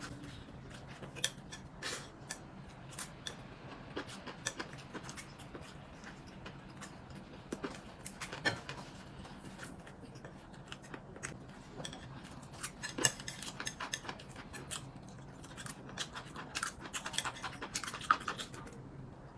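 Eating utensils clicking and clinking against bowls and plates during a meal: irregular, scattered light knocks, a few louder than the rest, over a faint steady low hum.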